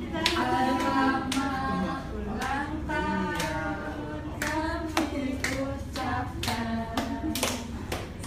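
A small group singing a birthday song together while clapping along, the claps falling in time at about two a second.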